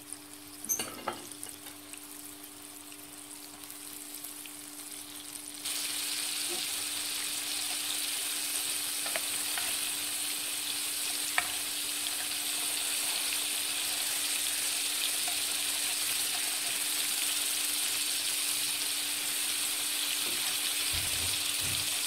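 Flour-coated chicken nuggets frying in a pan of hot oil: a steady sizzle that gets suddenly louder about six seconds in. There are a couple of brief clicks about a second in, and a steady low hum runs underneath.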